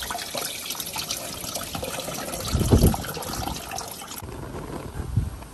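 Water pouring and splashing with small clinks as food is rinsed and drained, stopping about four seconds in. A louder low thump comes near the middle.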